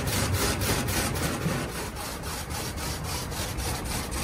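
Automatic car wash heard from inside the car: water spray and washing machinery hitting the bodywork in a steady, fast rhythmic swish, about five pulses a second.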